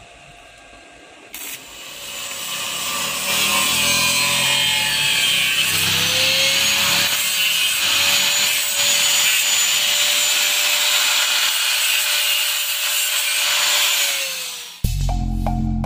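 Handheld angle grinder grinding the freshly welded steel frame of a Honda EX5, a harsh grinding noise over a steady motor whine. It builds up over the first few seconds, grinds steadily, and winds down abruptly near the end, where music takes over.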